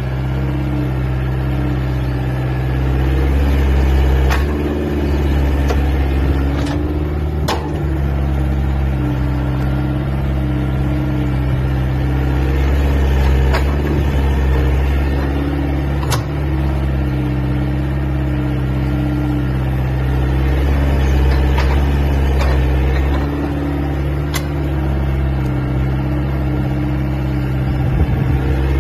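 Volvo EC80 crawler excavator's diesel engine running steadily under digging load, rising and easing a little as the bucket digs and dumps soil. A few sharp clanks from the bucket and arm come through, the loudest about seven seconds in and again around sixteen seconds.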